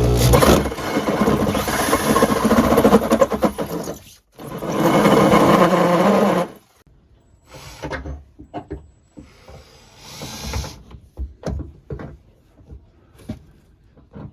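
Power drill grinding a pilot hole through the corrugated steel wall of a shipping container at an awkward angle, in two loud runs of about four and two seconds, then scattered short clicks and scrapes.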